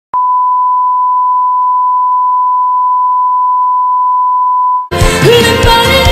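A steady 1 kHz test tone, the beep played under television colour bars, held for nearly five seconds and cut off abruptly. Pop music with singing then starts.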